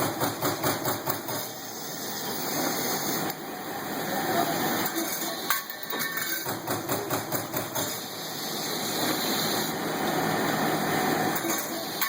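Trumpf TC 500 CNC punch press at work: its hydraulically driven ram punches sheet metal in rapid runs of sharp hits, several a second, between stretches of steady machine running.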